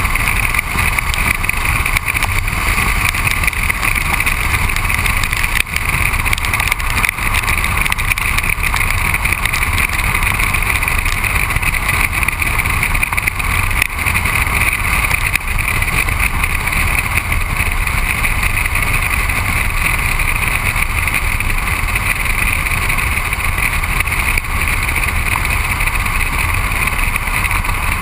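Steady road and wind noise of an Audi driving at speed, heard from beside its front wheel: the tyre rumbling on wet asphalt and wind rushing past, with no change in pace.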